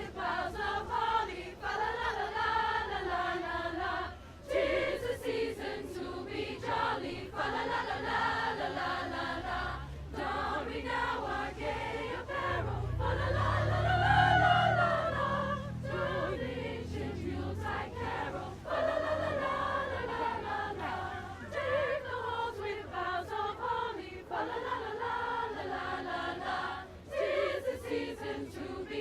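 High school choir singing. A low rumble swells under the voices around the middle.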